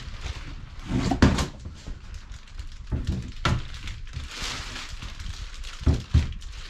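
Plastic bag wrapping rustling and cardboard box flaps being handled as a LiFeBlue lithium iron phosphate battery is lifted out and set on a countertop. Several dull thuds come through: about a second in, around three and a half seconds, and two close together near the end.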